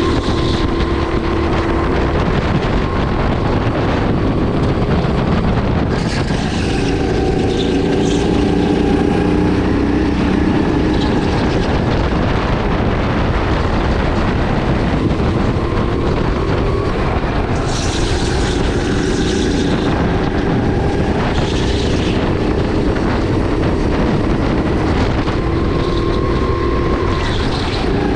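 Sodi RX8 270cc LPG rental kart's four-stroke single-cylinder engine running at speed on track, its pitch rising and falling again and again as the kart accelerates and slows through the corners, with wind noise over it.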